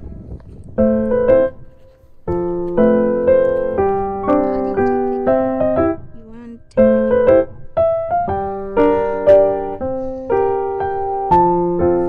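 Background piano music: a melody of struck notes over chords, each note fading after it is played, with brief pauses about two and six seconds in.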